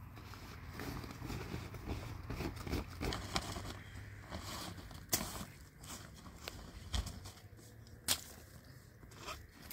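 Work noises of clearing snow: a pick-mattock scraping and knocking on snow and frozen ground beside a woven plastic tarp, with crunching in the snow. Scattered sharp knocks; the loudest come about five and eight seconds in.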